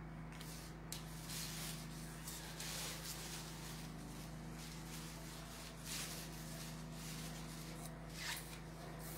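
Soft, intermittent rustling of fabric and lace being handled, a few brief rustles over a steady low hum.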